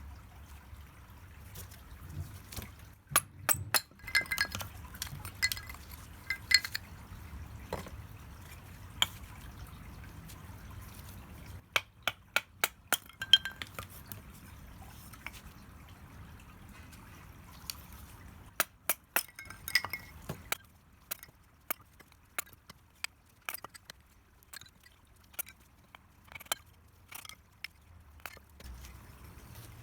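Hard lumps of charcoal clinking and knocking together with a glassy ring as they are handled and set into a shichirin clay grill. The clinks come in irregular clusters with short pauses between them.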